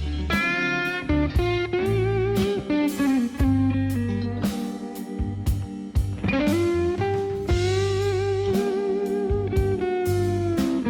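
Background music: an instrumental break in a blues-style song, with a lead guitar playing wavering, bending notes over bass and a regular drum beat.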